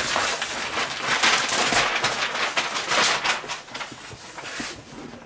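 Brown wrapping paper being pulled and crumpled off a large cardboard parcel: a dense, crackling rustle that dies down over the last second or so.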